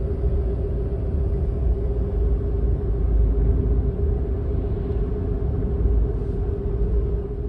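Engine and road noise inside a moving car's cabin: a steady low rumble with a constant drone over it.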